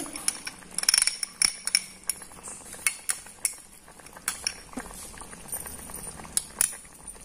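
Metal spoon clinking against a cooking pot, a quick cluster of taps about a second in, then scattered small ticks and pops from chicken curry gravy simmering in the pot.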